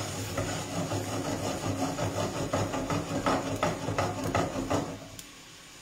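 Prawns sizzling in a frying pan on a gas hob while metal tongs scrape and click against the pan, turning them. The clicks come in a quick run, about three or four a second, in the second half, and the noise drops away about five seconds in.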